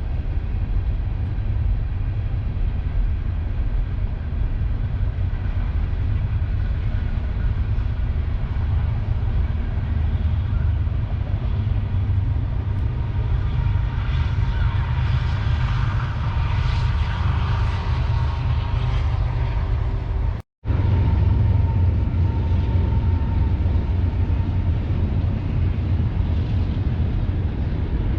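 A train passing with a steady low rumble, swelling in the middle with faint tones that slowly fall in pitch. The sound cuts out for a split second about two-thirds through, then the rumble carries on.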